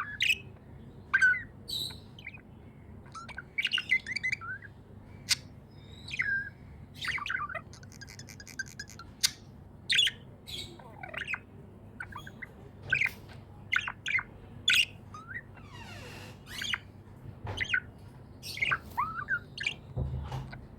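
Pet budgerigars chirping, a stream of short chirps and quick pitch glides in irregular succession, with a fast rattling trill about eight seconds in.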